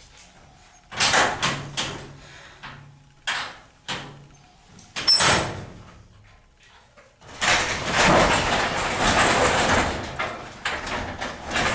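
Belongings being handled and moved about: several separate knocks and bangs, then a few seconds of continuous scraping noise starting about seven seconds in.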